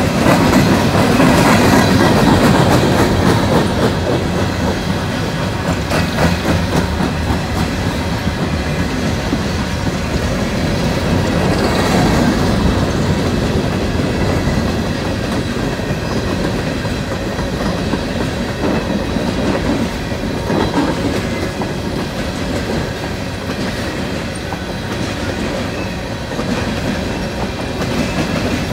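Freight train of CSX coal hopper cars rolling past at close range: a steady rumble of steel wheels on the rails with frequent clicking over the rail joints.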